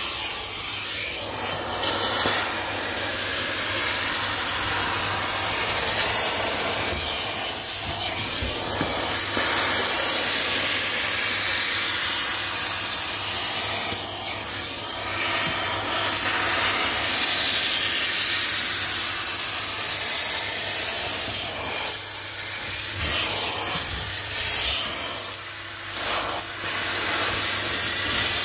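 Carpet extractor's hand stair tool spraying and sucking water through carpet on the stairs: a steady loud hiss with a low machine hum underneath, swelling and dipping as the tool is pushed and pulled across each step.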